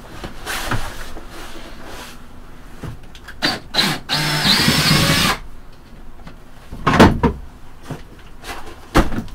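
Cordless drill-driver backing screws out of the wooden icebox: a couple of short bursts, then a longer run of about a second and a half with a whining pitch. Later come two sharp knocks and clatter as a piece of the wood is pulled off.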